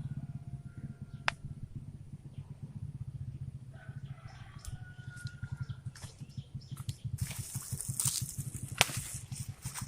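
A rooster crowing faintly twice, over a low, fast, rhythmic hum, with bursts of rustling hiss near the end.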